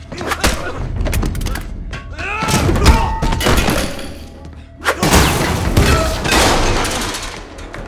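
Added action-film fight sound effects over dramatic background music: heavy thuds and impacts. The sharpest hit comes about five seconds in and is followed by a long crash.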